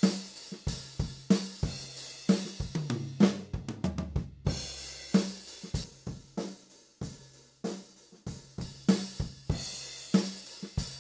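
Multitracked drum kit playing back in a rough mix: kick, snare and hi-hat in a steady beat, with a quick fill about three to four seconds in.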